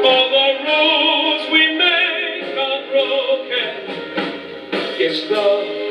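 Male singer holding long, wavering notes of a musical-theatre ballad into a microphone, backed by a live band of keyboards, electric guitar, drums and piano.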